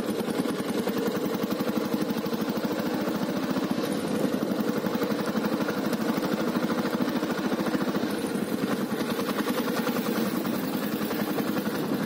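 Royal Enfield Bullet Standard 350's single-cylinder engine running steadily under way, its exhaust beating evenly through a hollow long-bottle silencer.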